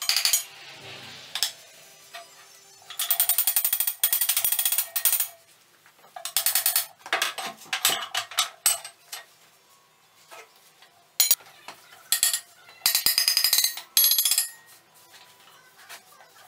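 Electric arc welding on steel plate: a series of short tack welds, each a burst of fast crackle from a fraction of a second to about two seconds long, with quiet gaps between.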